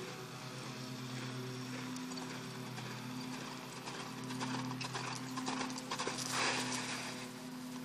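Hoofbeats of an APHA mare loping on arena sand, growing plain about four seconds in, then the loud scrape of her hooves sliding through the sand as she makes a reining sliding stop near the end. A steady low hum runs underneath.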